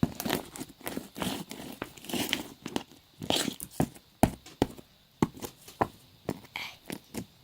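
Fingers poking and squishing slime that has small pearl beads mixed in, giving irregular sticky pops and crunchy clicks, several a second.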